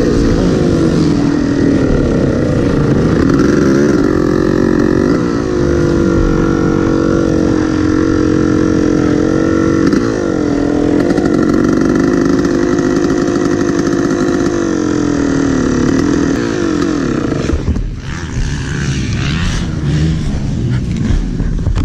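Yamaha YZ dirt bike engine running at low speed, its pitch rising and falling with the throttle before holding fairly steady. The engine note falls and stops about eighteen seconds in, with the exhaust pipe working loose.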